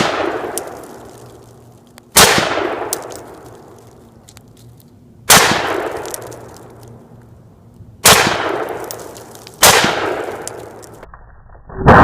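Gunshots fired into a ballistic gelatin block: four sharp reports, about two and a half to three seconds apart and the last two closer together, each ringing out and echoing for over a second.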